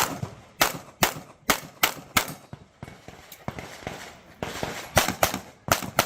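Competition pistol firing FLAMBERG match ammunition in rapid strings of sharp shots, about a dozen in all. There is a pause of about a second midway before a faster run of shots near the end.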